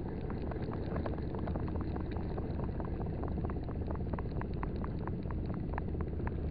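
A small 1000-size spinning reel being cranked on a lure retrieve, giving a quick run of light clicks, roughly five or six a second. Under it sits a steady low rumble.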